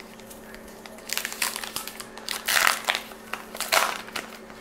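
Paper wrapper of a Gypsy Queen baseball card pack crinkling and tearing as it is ripped open by hand: a run of short crackly rustles starting about a second in, loudest near the middle and again near the end.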